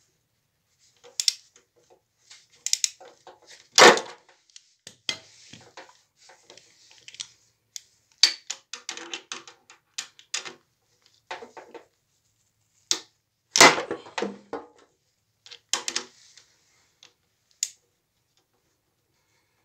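Hand tools and metal engine parts clicking and clanking at irregular times during an engine teardown, with a few louder clanks about 4 and 14 seconds in.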